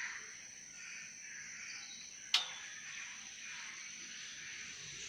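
Outdoor background ambience: a steady high-pitched whine over faint diffuse noise, broken by a single sharp click a little over two seconds in.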